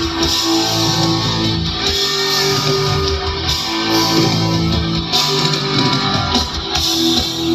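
Live band music playing loudly through an outdoor concert PA, heard from within the crowd, with no singing in this passage.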